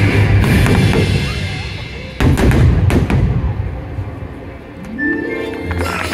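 Fireworks show soundtrack music over loudspeakers, with a cluster of sharp bangs from bursting fireworks shells about two seconds in.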